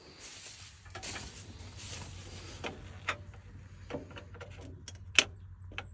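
Rustling and scattered light clicks and knocks of someone working in close quarters under a forage harvester among its hydraulic hose fittings, with one sharper tap about five seconds in. A faint low steady hum runs underneath.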